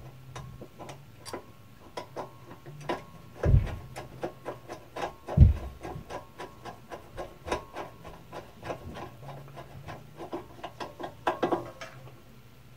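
Small clicks, taps and scrapes of metal parts as the hold-down foot of a scroll saw is fitted and set in place by hand with a screwdriver, the saw switched off. Two louder knocks come about three and a half and five and a half seconds in.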